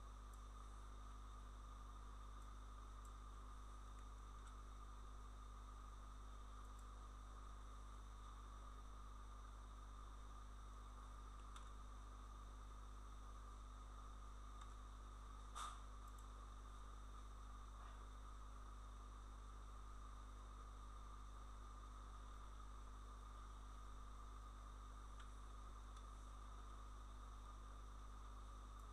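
Near silence: a steady low hum and hiss of the recording chain, broken by a single short click about halfway through and a few fainter ticks.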